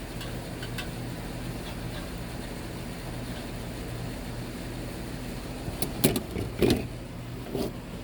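A steady low machine hum runs throughout. About six seconds in, a few sharp metal clanks break in, the loudest of them just before seven seconds.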